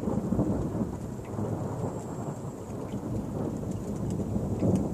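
Rolling thunder rumbling steadily, swelling just after the start and again near the end.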